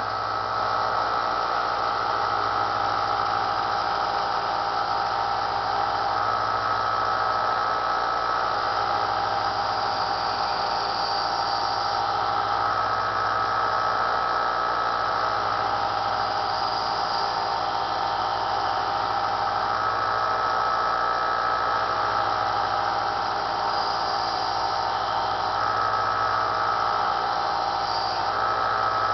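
Small electric belt sander running steadily, its motor and belt giving a constant whine, while a stainless steel flatware knife is sharpened on it; a few brief brighter hissing patches come and go where the steel meets the belt.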